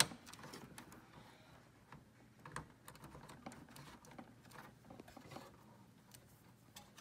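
Faint, irregular clicking and tapping of plastic cable connectors and wires being handled as cables are plugged into a desktop PC motherboard, with one slightly louder click about two and a half seconds in.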